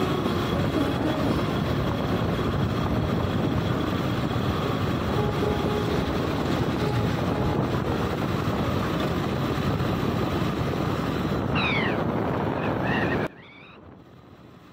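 Steady rush of wind on the microphone with a vehicle running underneath, heard while riding along a road. A couple of short falling whistles sound near the end. The noise then cuts off abruptly to a much quieter background.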